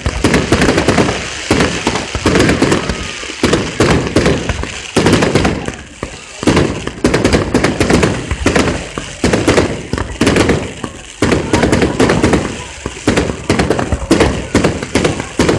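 Fireworks going off in rapid succession: a dense, continuous run of sharp bangs and crackles with barely a pause.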